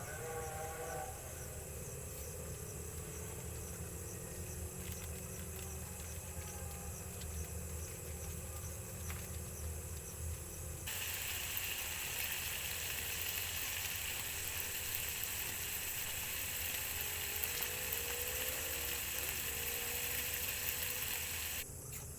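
Sardines cooking in a pan, sizzling and hissing. About eleven seconds in, after an abrupt cut, the sizzle becomes louder and brighter, then stops suddenly just before the end.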